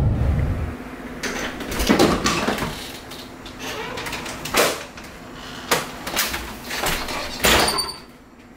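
Low car-cabin rumble that cuts off under a second in, then a run of sharp clicks and knocks, roughly eight at irregular spacing, from doors being swung open and their handles worked.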